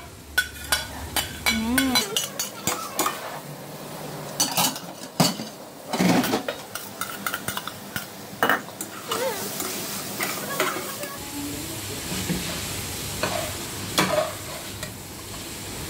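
A metal spoon scraping and clinking against a metal pot as grated carrot and potato are scraped in from a bowl and stirred into sautéing liver and ground chicken, over a steady sizzle of frying. The clinks come thick and fast for the first several seconds, then thin out while the sizzle carries on.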